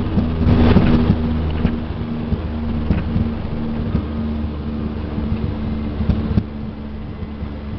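Small propeller airliner's engines running with a steady drone, with scattered knocks and rattles in the first half; the sound drops a little about six and a half seconds in.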